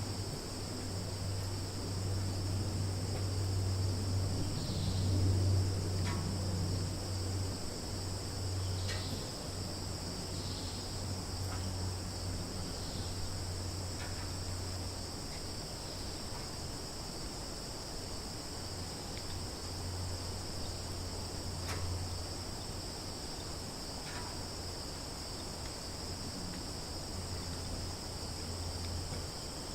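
Summer forest ambience: a steady, high-pitched insect chorus of crickets, over a low steady rumble, with a few short high chirps scattered through.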